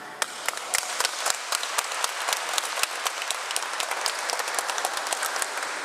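Audience applause: many people clapping at once, a dense, irregular patter of claps that begins just as singing ends and thins out near the end.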